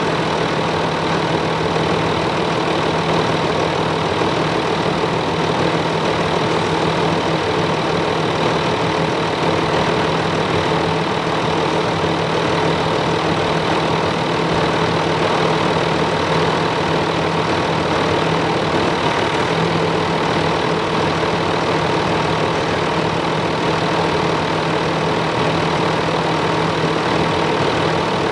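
Land Rover Discovery 4's 2.7-litre V6 turbodiesel idling steadily just after starting. The freshly refilled power steering pump makes no whine or groan, so the system is working properly.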